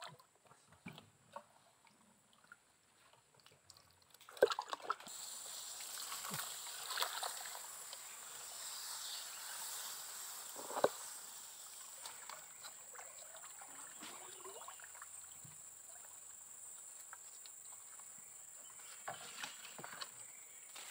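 Water sloshing and scattered knocks around a small boat being paddled. A steady high hiss swells about five seconds in and slowly fades.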